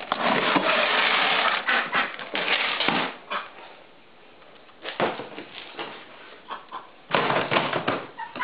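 Rustling and scraping of dry duck feed being scooped from a plastic bin, a dense spell of about three seconds, then a single knock about five seconds in, and more rustling near the end.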